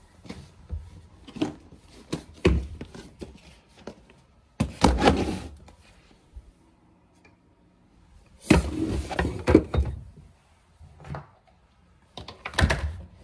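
Scattered thumps and knocks, with two longer stretches of rustling and scraping, as things are handled and moved about during clean-up.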